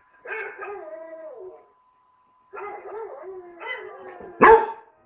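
Young basset hound howling and whining in broken, wavering calls that rise and fall in pitch, then a loud short bark about four and a half seconds in.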